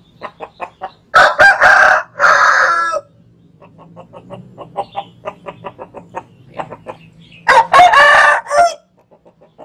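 Rooster crowing, a loud two-part crow about a second in and another near the end, with rapid short clucking notes in between.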